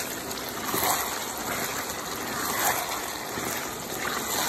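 Chicken stir-fry in a sticky sauce sizzling and bubbling in a nonstick wok as it is stirred with a spatula, a steady hiss with a few gentle swells.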